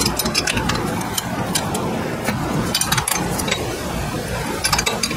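Small metal clicks and clinks as bolts are handled and threaded by hand into a new scooter swing arm, over a steady low rumble of background noise.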